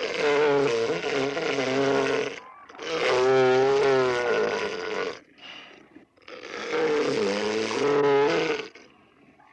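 African elephant calling: three long, rough roars of about two seconds each, the pitch wavering through each call.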